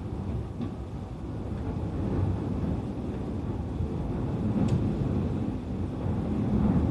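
Running noise heard inside the cabin of a JR East E531 series electric train: a steady low rumble of wheels on rail, growing a little louder near the end, with one faint click about two-thirds of the way through.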